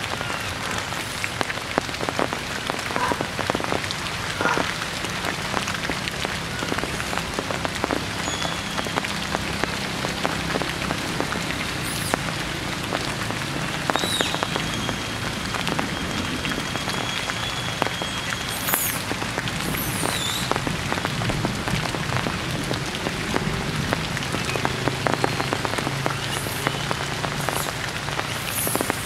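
Heavy rain falling steadily on forest leaves, a dense even patter of drops.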